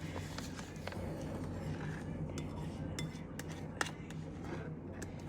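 A utensil clicking and scraping against a bowl while stirring slime, in scattered light clicks, the sharpest a little before four seconds in.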